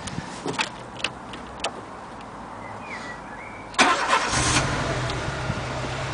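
Clicks from the ignition key, then the Renault Mégane Scénic's 16-valve engine cranks and fires about four seconds in, settling straight into a rough idle. It is running on only three cylinders, which the owner believes is down to failing ignition coil packs.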